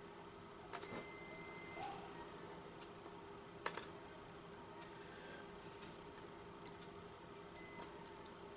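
DT9205A digital multimeter's continuity buzzer beeping as its probes touch power-transistor pins: one steady beep of about a second near the start and a short beep near the end, with a single sharp click between them. The beeping signals a short circuit; the transistors, blown power MOSFETs, are all shorted.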